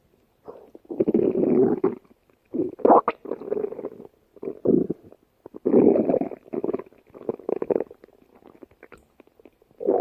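Stomach growling: a string of separate gurgling rumbles, some brief and some lasting most of a second, fading to faint gurgles near the end.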